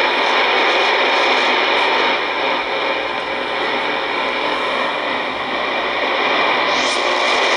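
Shortwave radio receiver on the 31-metre band putting out steady hiss and static with no speech coming through. A brief rising whistle appears near the end.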